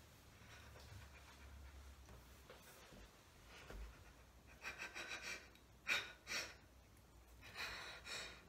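A woman's exasperated sighs and breaths, a few short huffs past the middle and one longer breath out near the end.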